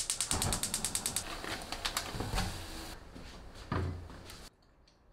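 A fast run of mechanical clicks, ratchet-like, that thins out into scattered clicks with two dull knocks, then stops about four and a half seconds in.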